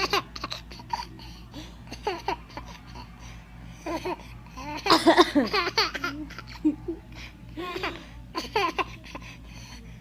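Baby laughing and babbling in short bursts, loudest about five seconds in.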